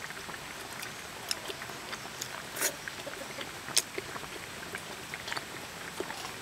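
A person eating with chopsticks from a bowl: a few short sharp clicks of the chopsticks against the bowl, the loudest nearly four seconds in, and soft chewing over a steady low hiss.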